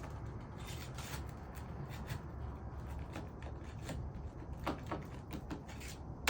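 Roof shingle being worked loose from its nails: a run of short scrapes and crackles, with a sharp snap near the end as the shingle rips through.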